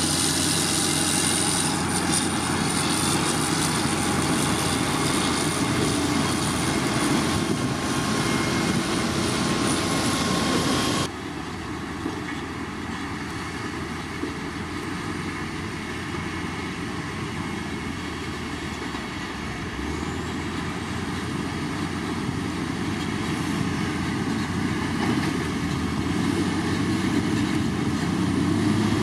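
Motor grader's diesel engine running steadily as the machine works, with a faint high whine over it. About eleven seconds in the sound cuts abruptly to a quieter diesel engine running, which slowly grows louder.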